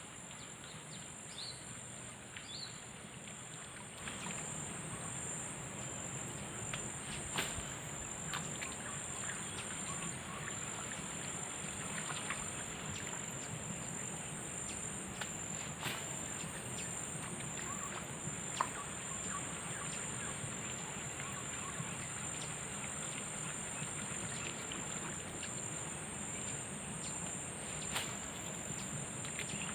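Outdoor ambience dominated by a steady high-pitched insect drone, like crickets or cicadas, over an even hiss that grows louder about four seconds in. A few short bird chirps come in the first seconds, and scattered sharp clicks sound now and then.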